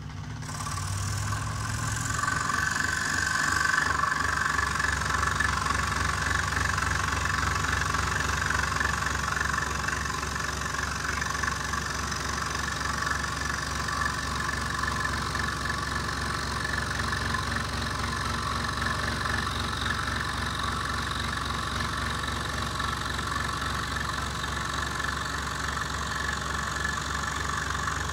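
Einhell TC-SS 405E scroll saw running, its blade stroking up and down as it cuts a curve through a thick piece of wood, with a steady motor hum under the scratch of the blade in the wood. The cutting noise grows louder over the first few seconds as the blade bites in.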